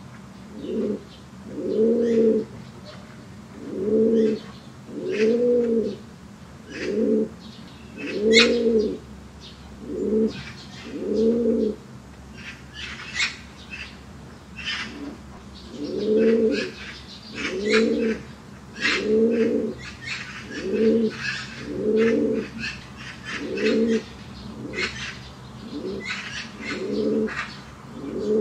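Domestic fancy pigeons cooing: a run of low, rolling coos repeating about once a second, each rising and falling in pitch, with a pause of a few seconds about halfway through. Short high chirps are scattered over the coos.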